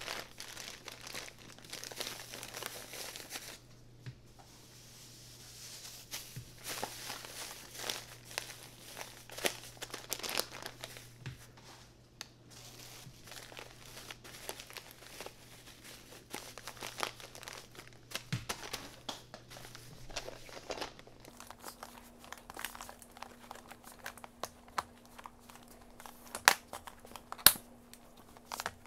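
Plastic snack packets crinkling as they are handled and packed into a clear plastic storage container. Near the end come a few loud, sharp plastic clicks as the container's snap-lock lid is pressed on.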